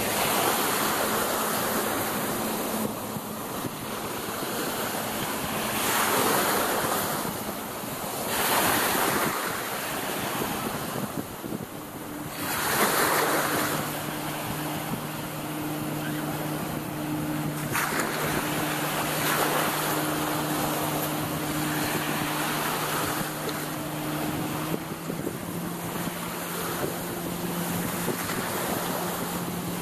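Small sea waves washing in the shallows, swelling every few seconds, with wind on the microphone. From about halfway through, a distant motorboat engine hums steadily underneath.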